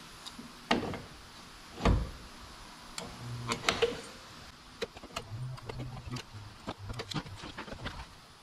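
Stud-gun pin welder spot-welding little brass pins one after another onto a dented steel door skin, to pull the dent out: a run of sharp snaps at irregular intervals, the loudest about two seconds in, several of them carrying a brief low hum.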